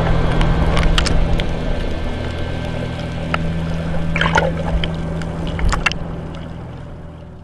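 A small engine running steadily, with water splashing and a few sharp knocks over it. The sound fades away over the last second and a half.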